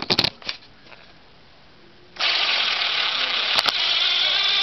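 A few knocks, then about two seconds in a DeWalt 18V XRP DW056 cordless impact driver starts and runs steadily, driving a screw into a wooden block, with its hammer not yet striking.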